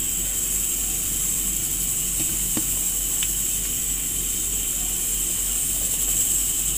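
Steady hiss and low hum as a pot of curry cooks on the stove, with two faint taps around the middle.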